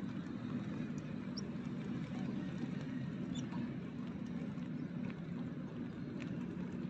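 Steady low engine rumble of distant motor traffic, with a few faint short high chirps over it.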